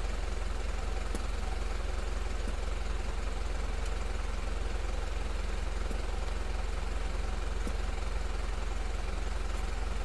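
Mitsubishi Fuso 4M50 four-cylinder common-rail turbodiesel idling steadily.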